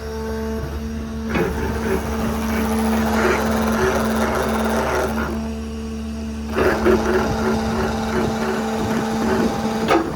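Stellar 7621 hydraulic crane running on the service truck: a steady hydraulic pump hum, with two long stretches of rushing hiss and rattle as the crane is worked, most likely slewing (rotating).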